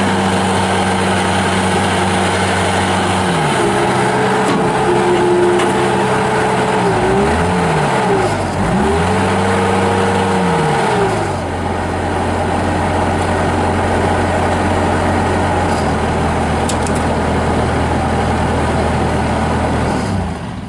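Bobcat S205 skid steer's Kubota V2607 diesel engine running steadily as the machine is worked. About halfway through, its pitch dips and recovers twice.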